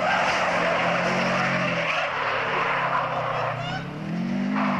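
Subaru Impreza hillclimb car at full throttle with loud tyre skidding as it slides wide through a bend. Near the end the engine note rises sharply as the car leaves the road.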